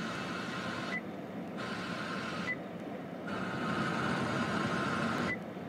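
Car FM radio hissing with static between stations as the tuner steps up the band. Three short high beeps come about a second in, about two and a half seconds in and near the end, one at each tuning step, and the hiss briefly thins at each step.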